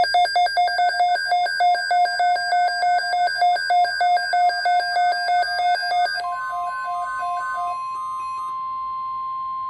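Rapid electronic alert beeping, about eight beeps a second hopping between two pitches. About six seconds in, a steady 1050 Hz NOAA Weather Radio warning alarm tone takes over as the beeping fades. The tone is the signal that a watch or warning broadcast is about to follow.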